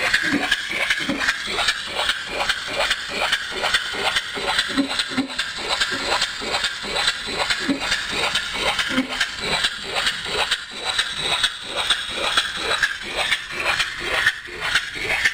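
Small four-stroke engine converted to run on compressed air, running with an even rhythm of short knocks, about four a second, over a steady hiss of air.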